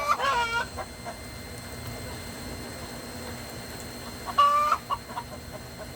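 Chickens clucking: a short burst of calls at the start and another about four and a half seconds in.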